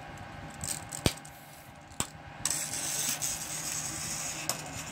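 A steel tape measure being handled: two sharp metallic clicks about a second apart, then a hiss of about two seconds as its blade is pulled out. Under it runs the steady hum of a Mingda Magician Pro 2 3D printer printing.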